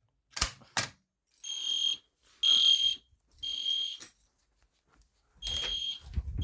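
Two sharp clicks, then an EST Genesis horn strobe sounding a steady high-pitched horn tone in the temporal-three evacuation pattern: three half-second blasts about a second apart, a pause of about a second and a half, and the next group of three starting.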